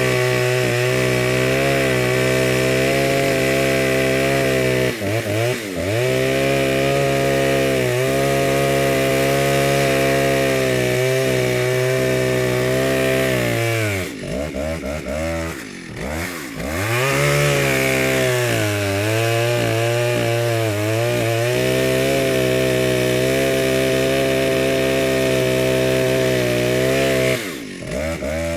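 Chainsaw running at high speed with a steady pitch that sags and recovers a few times: briefly about five seconds in, twice in the middle, and again near the end.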